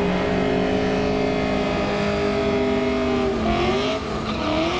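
Drag-racing car engine held at a steady high rev for about three seconds, then dipping briefly and climbing again near the end.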